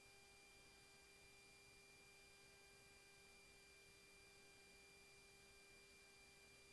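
Near silence: a faint steady hiss with a few faint steady tones, the recording's noise floor.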